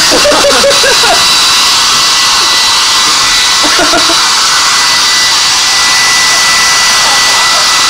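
Hand-held hair dryer running at full blast close to the microphone: a steady, loud rush of air with a thin high whine. A voice cuts in briefly over it.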